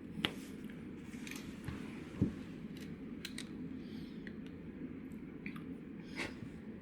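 Steady low room hum with a few scattered light clicks and a soft knock about two seconds in.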